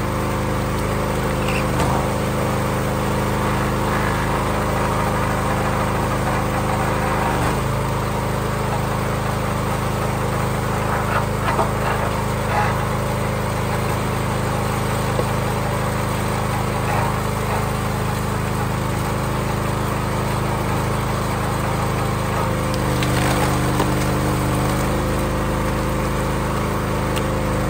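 Small gas engine of a hydraulic log splitter running steadily, with a few knocks of wood being handled. Near the end, its note changes for a couple of seconds as the ram pushes a round through the four-way wedge.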